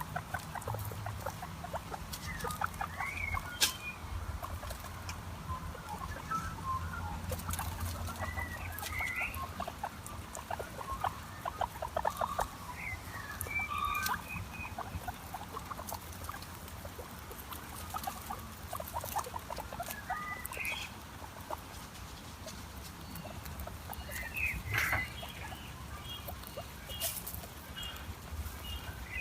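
A guinea pig giving short, rising squeaks, scattered every few seconds, with runs of soft rapid clicking between the calls over a low steady hum.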